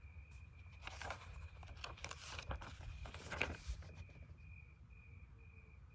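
Paper workbook pages rustling as the book is handled and opened, in a few soft bursts between about one and four seconds in. Under it, a faint high chirp repeats about twice a second.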